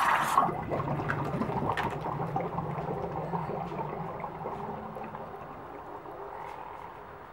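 A bundle of sparklers burning underwater in a tall glass of water. A loud hiss cuts off about half a second in as the flame goes under, giving way to steady bubbling and gurgling that slowly fades.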